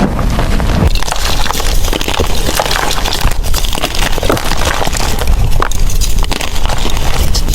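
Blocks of gym chalk being crushed and crumbled by hand, a dense, continuous run of crunching and crackling.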